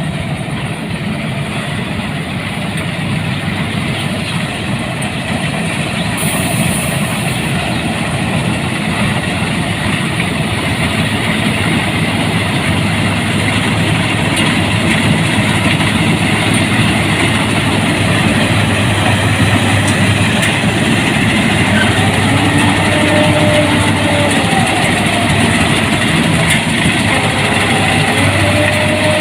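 Rice combine harvester running steadily with a dense mechanical noise, getting slightly louder over time, with faint wavering tones near the end.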